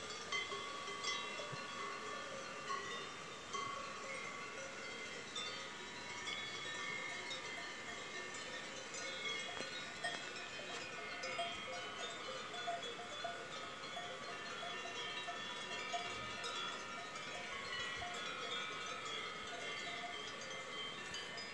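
Many cowbells on a herd of cows ringing and clanking irregularly as the animals move about. The bells overlap at different pitches, with no steady rhythm.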